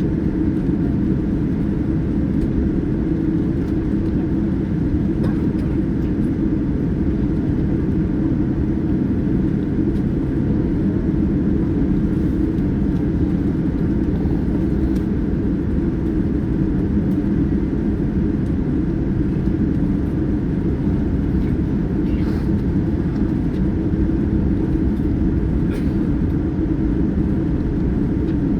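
Steady engine and airflow noise inside the cabin of a Boeing 787-9 airliner, a deep, even roar with a few faint ticks now and then.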